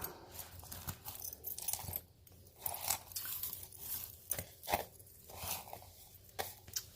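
Costume jewelry being handled and sorted: beads and chains clicking and rattling against each other, with rustling, in irregular bursts.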